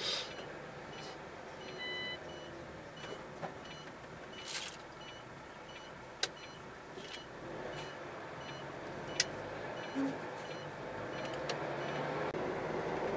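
Steady engine and road noise of a moving vehicle, heard from inside the cab, with scattered clicks and rattles. A short beep sounds about two seconds in, and faint regular ticking runs through the first half. The noise grows louder near the end.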